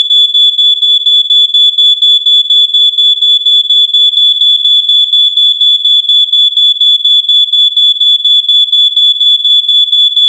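Smoke detector alarm sounding: a loud, shrill, high-pitched beep pulsing rapidly and evenly, about four to five beeps a second.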